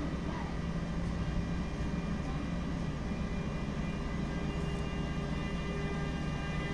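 Freight train pulled by a Traxx electric locomotive with an SM42 diesel shunter coupled behind it, moving off slowly. A steady low diesel rumble, with a high electric whine of several steady tones growing in from about halfway through.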